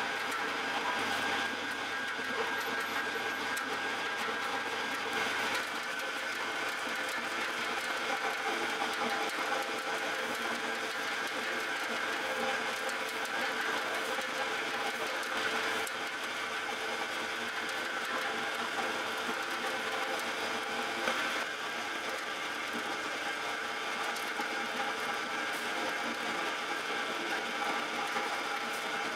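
Large commercial spiral dough mixer running steadily, its hook churning a big batch of bread dough in the stainless-steel bowl.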